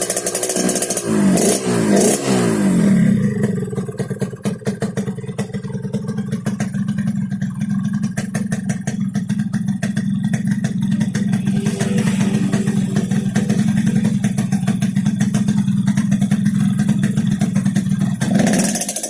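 Yamaha RX-King single-cylinder two-stroke motorcycle with a modified 'snoring' (ngorok) exhaust. It revs high at first and is blipped up and down a few times, then settles to a steady idle with a rattly pulsing exhaust note, and is revved again near the end.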